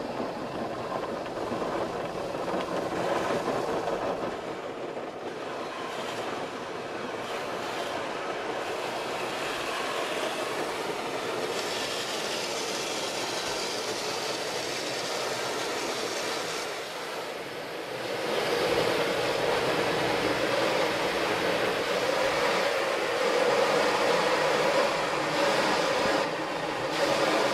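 Automatic car wash heard from inside the car: cloth wash strips and brushes rubbing over the windshield and body while water sprays on, a steady washing noise that grows louder about eighteen seconds in.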